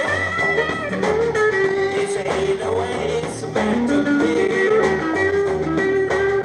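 Rock band playing live: guitars over bass and drums with a steady beat. A held lead line slides upward about halfway through.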